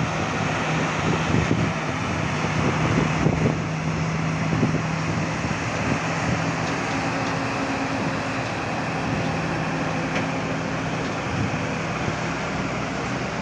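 Heavy lorries' diesel engines running at low, steady revs as they drive slowly through floodwater covering the road, over a steady hiss.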